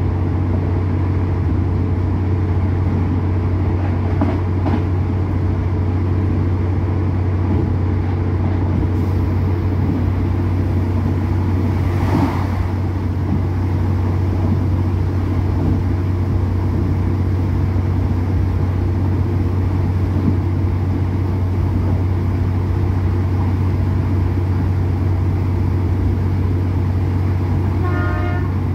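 Steady running noise inside an Irish Rail Class 2800 diesel railcar under way: a constant low engine drone with an even rumble over it. A brief louder rush comes about twelve seconds in.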